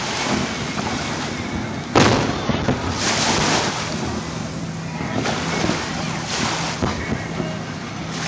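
Distant aerial fireworks exploding over the water: one sharp bang about two seconds in, then several duller booms spread through the rest. A steady low hum runs underneath.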